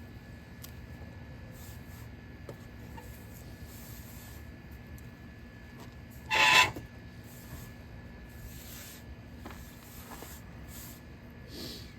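A steel knife spine scraped hard down a ferrocerium rod once, a short rasping strike about halfway through, with a few fainter scrapes around it.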